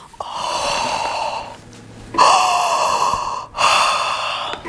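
A woman's loud, breathy gasps of delight: three long breaths of about a second each, the second beginning with a brief voiced sound.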